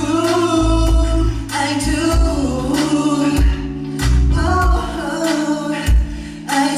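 Live pop ballad performance: a male singer's voice over a band backing track with bass and a steady drum beat.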